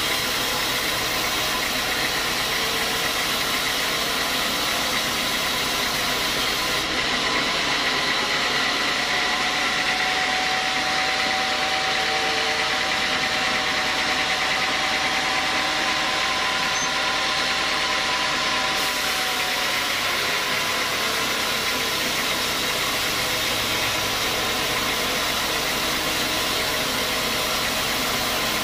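Sawmill band saw running steadily, its blade cutting lengthwise through a large squared teak block on the log carriage. A thin, steady whine joins about nine seconds in and fades about ten seconds later.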